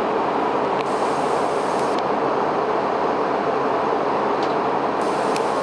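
Steady cabin noise inside a Boeing 717 airliner in flight: the even hiss of airflow and jet engines, with no change in level. A few faint clicks sound over it.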